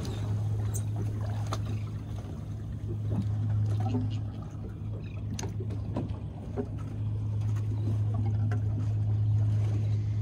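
Steady low machine hum aboard a boat, with a few faint knocks and rubbing as a rope is tied off at the gunwale.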